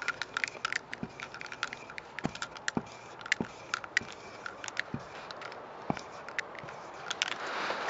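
Molotow Speedflow paint marker's tip scraping across a wall while a tag is written, with many small irregular ticks and an occasional deeper knock.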